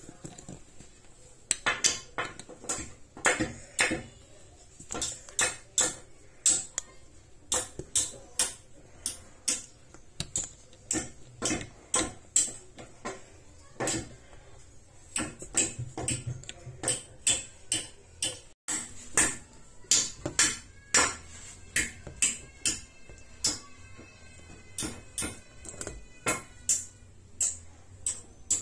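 A long series of sharp clicks, roughly two a second and uneven in loudness.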